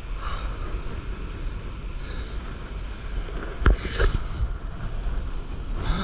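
Steady low rumble of wind buffeting the microphone, with one sharp knock a little over halfway through.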